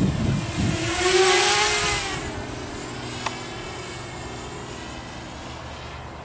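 Walkera F210 racing quadcopter's motors and propellers whining as it flies past close by. The pitch rises, the whine is loudest about a second in, and then it drops and fades as the quad moves away. Wind buffets the microphone at the start, and there is a single sharp click about three seconds in.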